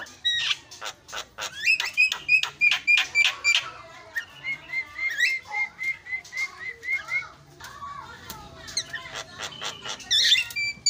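Javan myna (jalak kebo) singing: a fast jumble of clicks and harsh notes with runs of short whistled notes repeated several times a second.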